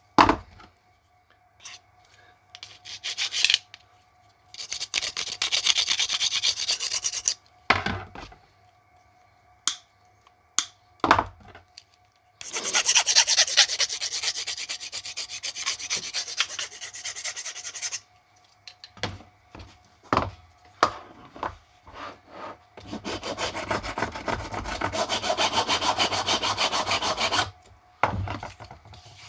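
An abrasive rubbed in quick, even strokes along the cut edges of homemade socket holders to smooth off the jagged edges. It comes in three long stretches, with short knocks and handling between them.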